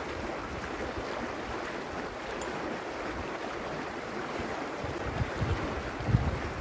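Shallow, fast river rushing over stones in a steady wash, with wind buffeting the microphone in low gusts near the end.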